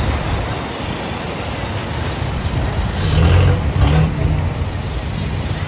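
Isuzu D-Max 1.9 Ddi pickup's four-cylinder turbodiesel engine running as the truck passes close by over steady street noise. It gets louder for about a second a little past the middle.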